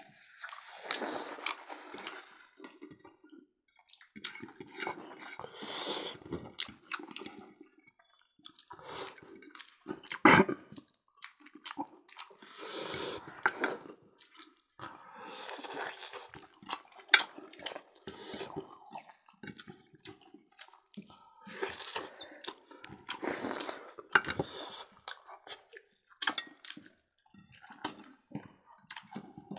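Close-miked, wet chewing and lip-smacking of people eating roast pork belly with their fingers, coming in bursts with short pauses, scattered clicks and one sharp click about ten seconds in.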